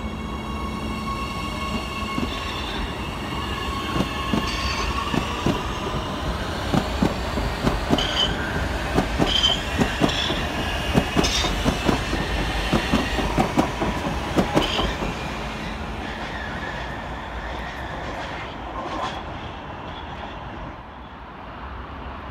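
Oslo Metro MX3000 train passing close by, its wheels clicking rhythmically over rail joints and points, with a high wheel squeal above. The sound is loudest in the middle and then fades as the train moves away.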